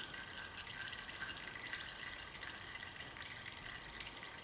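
Warm engine oil from a Honda HS928 snowblower running steadily out of the drain, through a plastic funnel and into a plastic drain pan. The engine was warmed up first, so the oil flows freely.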